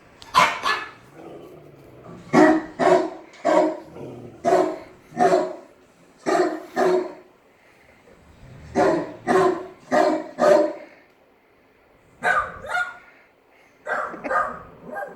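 A dog barking loudly in repeated bursts of two to four barks, with short pauses between the bursts.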